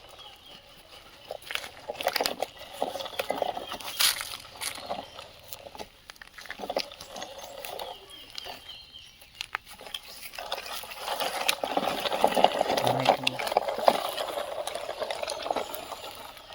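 Small rocks clicking and clattering against each other and against toy excavator and dump truck parts as they are scooped and moved. From about ten seconds in, a denser, continuous rattle of stones sliding and pouring.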